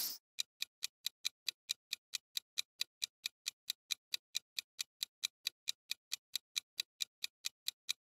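Countdown-timer clock ticking sound effect: short, sharp, high-pitched ticks at an even pace of about six a second, marking the seconds of a quiz answer timer.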